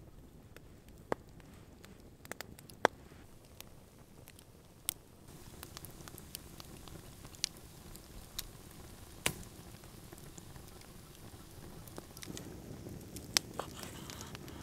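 Wood campfire crackling, with sharp pops at irregular intervals, a few seconds apart at most.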